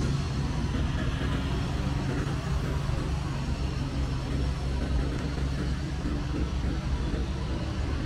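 Roadside traffic ambience: cars driving past on the adjacent road, a steady low rumble with no single standout event.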